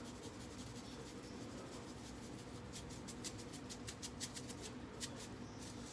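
Sea salt being dispensed over raw sliced zucchini, yellow squash and onions in a pan: a run of small quick ticks starting about halfway through and lasting about three seconds, over a faint steady room hum.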